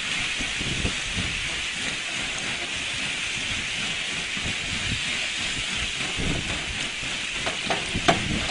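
Lake ice shove: wind-driven sheets of lake ice pushing ashore, grinding and crunching in a steady hissing rush with low rumbling, likened to a train. A few sharp cracks come near the end.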